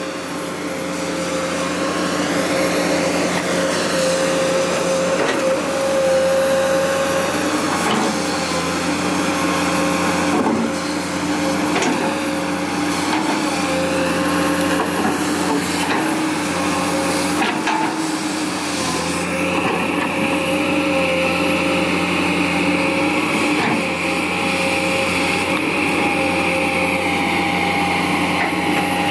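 Komatsu PC200 hydraulic excavator working: its six-cylinder diesel engine runs steadily under load while the hydraulics whine, rising and falling as the boom and bucket move, with a few knocks as the bucket digs. A steady higher whine comes in about two-thirds of the way through.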